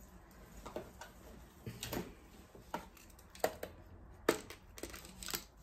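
A few light clicks and taps of small objects being handled, irregularly spaced about half a second to a second apart.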